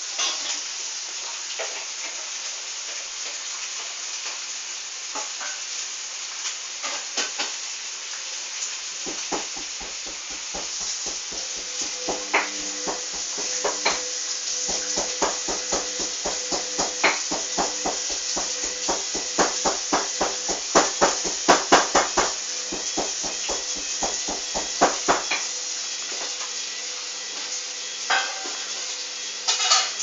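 Hoover front-loading washing machine in its final rinse: the drum turns and the wet clothes slosh and slap in the water, a fast, regular knocking that starts about a third of the way in and stops shortly before the end. A steady hiss and a faint hum run underneath.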